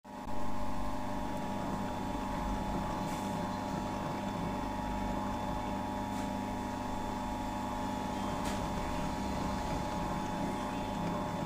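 Planetary mixer running steadily, its motor and gear drive giving a constant multi-toned hum and whine, with three faint ticks. The mixer has a speed fault.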